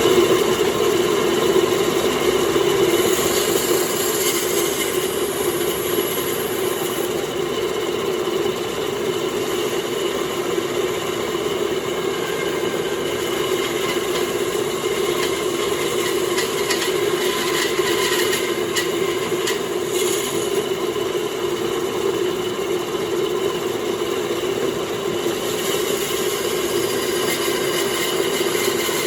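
Homemade bandsaw running steadily with a constant mechanical hum, its blade making a first test cut; higher-pitched cutting noise comes in for a few seconds around the start and again past the middle.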